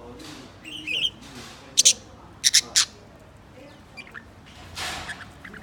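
Pet cockatiel and budgie calling: a short chirp about a second in, then about four loud, harsh squawks in quick succession, and a longer breathy rasp near the end.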